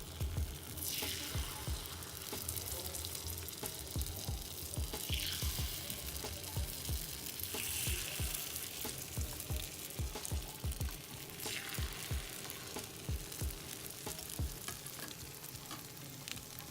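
Rice-flour batter sizzling in a hot, oiled banh khot pancake mould. The sizzle swells about four times, a few seconds apart, as more batter hits the hot wells, with soft knocks of utensils on the pan.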